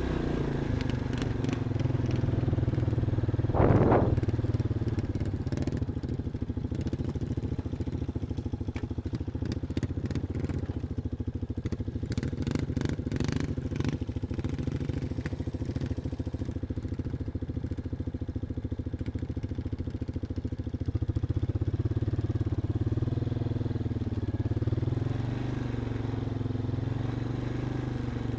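Off-road vehicle engine running steadily at low revs while crawling along a trail, with scattered clicks and crunches in the middle stretch.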